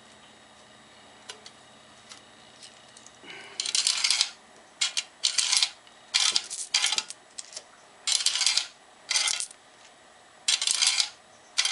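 Coins fed one after another through a coin-operated timer's coin slide, with the timer wheel removed, each running down the slide with a metallic clatter; about eight pass in quick succession after a few faint clicks. This is a test that the slide feeds coins freely without obstructions.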